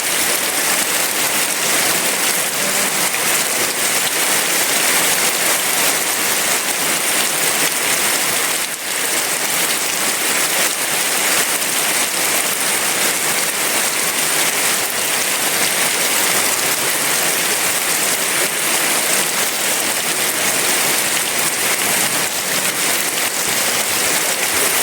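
Heavy rain falling steadily: a dense, even hiss of raindrops with no thunder.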